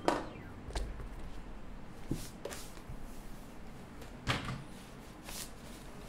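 A switch-loaded keyboard PCB and plate being handled and set down on a desk, giving a few sharp knocks and clatters: one right at the start, a louder one about four seconds in, and lighter taps between.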